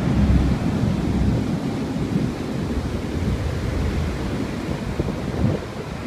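Heavy surf breaking and washing up the beach, with wind buffeting the microphone as a low rumble. It is loudest in the first couple of seconds.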